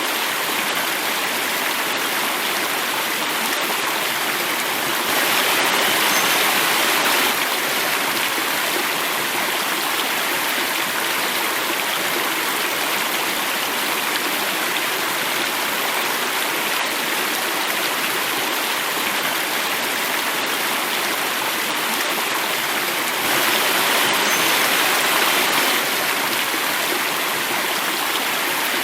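Running water flowing and falling, a steady, dense rush like a stream cascading, swelling a little louder twice, about five seconds in and again near the end.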